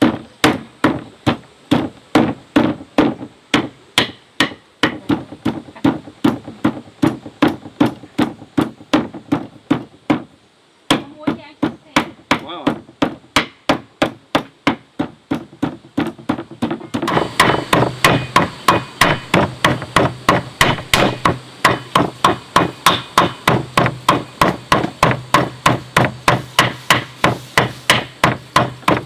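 Cleaver mincing meat on a wooden chopping board: steady, rhythmic strokes about two to three a second, with a brief pause about ten seconds in. From about seventeen seconds in the chopping quickens slightly over a low steady hum.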